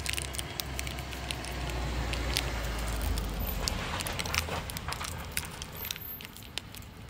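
A motor vehicle passing on the road, its low rumble swelling to a peak about three seconds in and then fading, with many small clicks and crackles over it.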